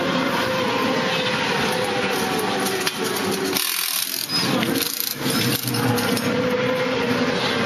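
Racing motorcycle engines running, a loud steady din with wavering engine tones, with a short dip in the low rumble about three and a half seconds in.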